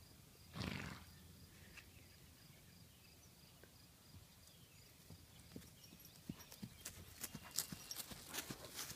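Faint hoofbeats of an American Paint horse walking over grass, coming closer and getting louder over the last few seconds. A brief whoosh of noise just under a second in.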